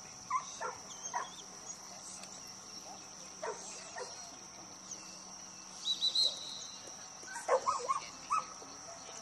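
A dog barking and yipping in short, sharp calls: a few in the first second or so, one about three and a half seconds in, and a loud quick run of barks around seven and a half to eight and a half seconds in.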